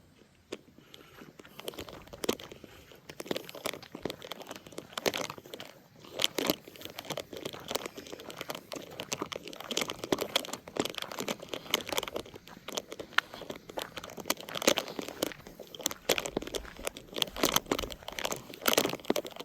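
Irregular crunching and crackling, starting about two seconds in and continuing throughout.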